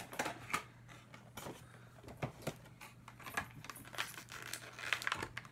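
Clear plastic toy packaging being handled and pried open, giving a scatter of faint clicks and taps.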